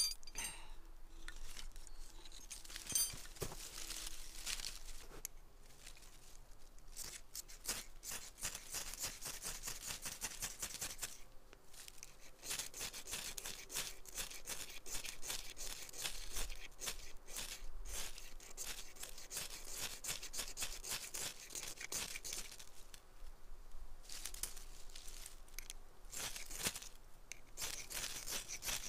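Birch bark being torn and shredded by hand into tinder: runs of small rips and crackles in spells, with short pauses between.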